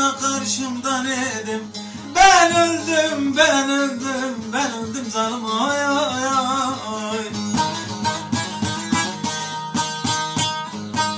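Two bağlamas (saz) played together while a man sings a Turkish folk song in a wavering, ornamented voice. About seven seconds in the singing stops and the sazes go on alone with quick plucked notes.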